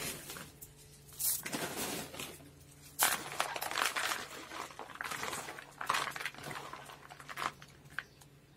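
Orchid potting mix of bark and expanded clay pebbles rustling and rattling in a plastic bowl as hands stir it, with crinkling of a plastic substrate bag. The sound is a string of irregular scrapes and rustles.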